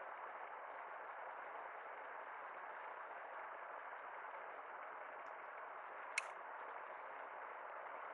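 Faint steady hiss of room tone, broken by one sharp click about six seconds in.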